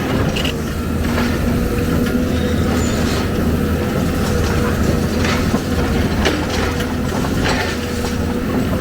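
Heavy diesel engine of an excavator running steadily under load, with scattered metallic clanks and rattles from the machine working.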